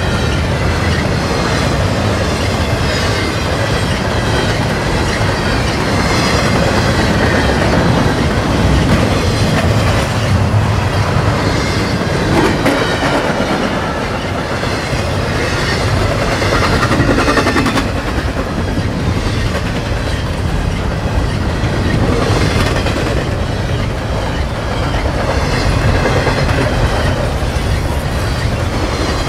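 Canadian National double-stack intermodal freight train rolling past, its well cars' wheels running steadily over the rails in a continuous loud rumble and clatter.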